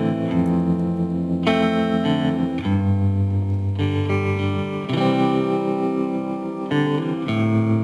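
Background music: guitar playing sustained chords that change every second or so.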